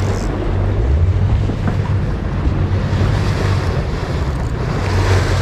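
Wind buffeting the microphone on a fishing boat at sea, over a steady low rumble and the wash of water.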